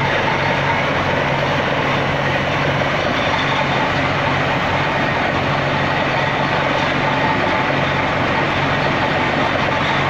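Truck-mounted water-borehole drilling rig running steadily while drilling: a constant engine hum under a dense, even noise.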